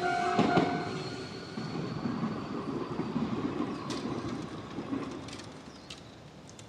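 Shizuoka–Shimizu Line electric train running past a level crossing, its rolling wheel-on-rail noise fading steadily as it moves away, with a thin high whine that dies out around halfway. A steady tone cuts off about a second in.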